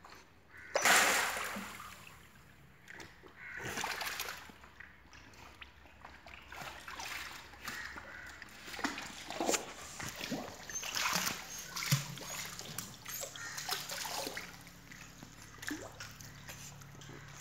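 A Kanni puppy swimming, its paddling splashing and sloshing the water in irregular bursts, with one loud splash about a second in.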